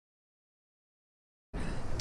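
Dead digital silence for about a second and a half, then an abrupt start of steady outdoor noise with heavy wind rumble on the microphone.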